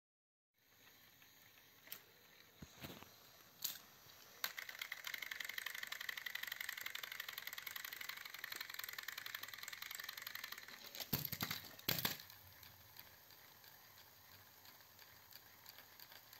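Small battery motors of toy train engines running on plastic track, a steady buzzing whir with rapid gear ticking, after a few sharp clicks. Around eleven to twelve seconds in there is a loud plastic clatter as the engines fall off the raised track, then only a faint hum.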